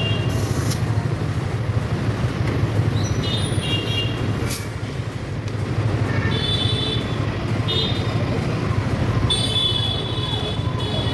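Steady road traffic rumble, with short high-pitched horn beeps several times.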